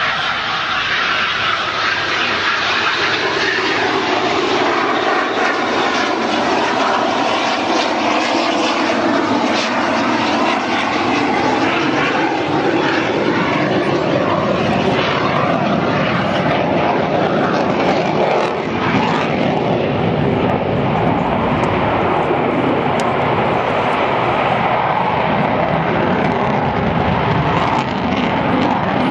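A Eurofighter Typhoon's twin Eurojet EJ200 turbofans running loud and steady as the jet flies its display, the pitch of the engine noise sliding slowly down and later rising again as it passes.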